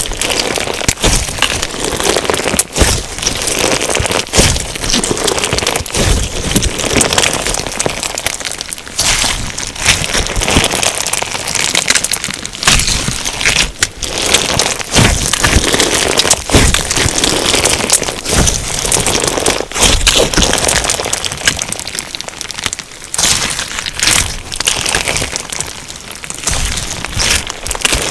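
Crunchy slime packed with sugar beads being squeezed and kneaded by hand: a continuous dense crackling and popping of the beads, with frequent sharp clicks.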